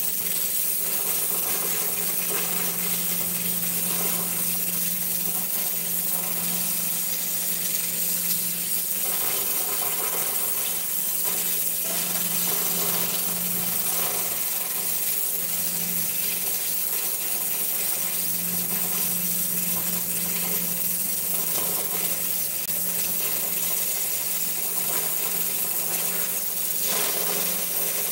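Pressure cooker heating on a lit gas burner, giving a steady hiss over a constant low hum, with faint scattered ticks.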